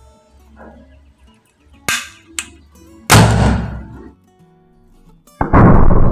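Homemade spirit cannon, a can barrel with a plastic-bottle combustion chamber, firing: two sharp cracks, then one loud boom about three seconds in that dies away over about a second. Loud music comes in near the end.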